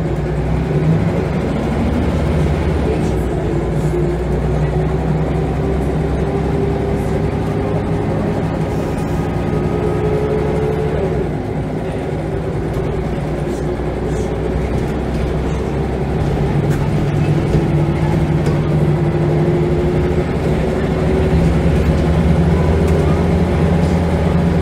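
Scania L94UB bus's diesel engine thrashing under acceleration, heard inside the saloon. The engine note climbs, falls back about eleven seconds in as the automatic gearbox changes up, then climbs again.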